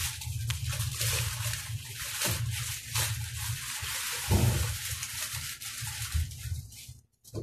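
Steady low hum under a hiss, with a few knocks and rustles from handling; the hiss cuts off suddenly near the end.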